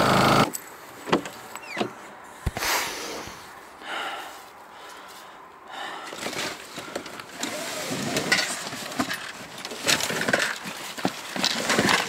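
Small outboard motor running, cut off about half a second in. Then rustling, clicks and knocks of bags and fishing-rod cases being handled and pulled out of a packed car boot.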